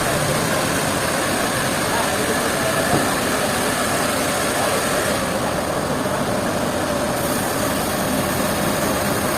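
Sawmill machinery running steadily, a dense unbroken engine-like noise.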